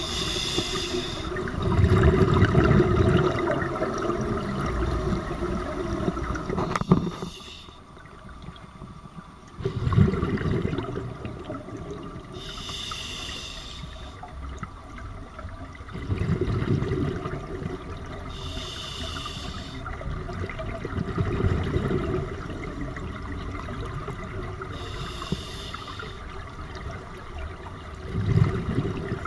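Scuba regulator breathing underwater: a short hiss of inhaling through the demand valve about every six seconds, each followed by the low rush of exhaled bubbles.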